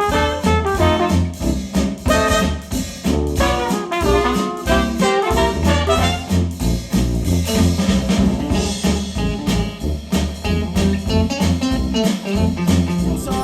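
Instrumental retro swing jazz with trumpet and other brass over a steady beat, played back through Monitor Audio Bronze 100 bookshelf speakers driven by a Yamaha A-S301 integrated amplifier.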